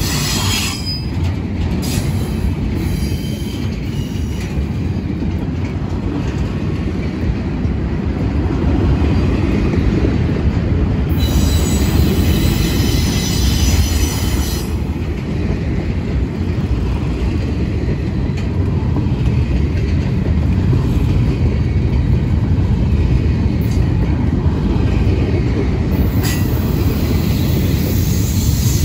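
Intermodal freight train's well cars rolling past close by: a steady heavy rumble of steel wheels on rail, growing a little louder partway through. About eleven seconds in, a high-pitched wheel squeal rings out for three seconds or so.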